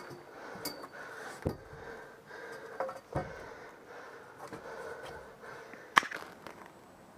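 Close breathing and movement noise with a few sharp clicks or knocks, the loudest about six seconds in.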